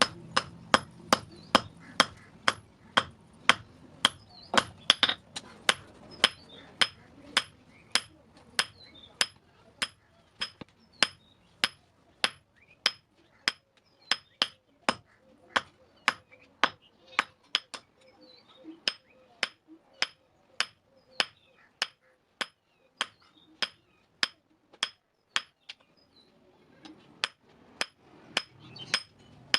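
Hand hammer forging steel on an anvil in a steady rhythm, about two blows a second, each blow ringing briefly and metallically. There are short pauses about halfway through and near the end.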